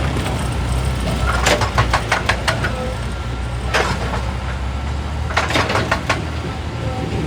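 Excavator's diesel engine running steadily, with three bunches of sharp clattering knocks of rock against metal.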